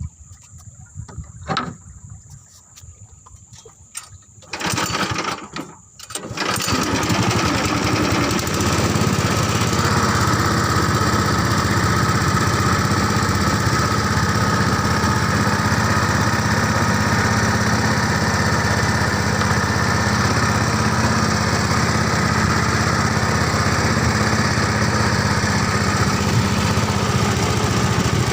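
A small engine comes up loud about six seconds in and then runs steadily for the rest of the stretch. Before that there are only quieter scattered clicks and a short burst of noise.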